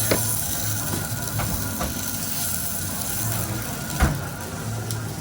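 Steady background hiss over a low hum, broken by a short knock near the start and a louder knock about four seconds in.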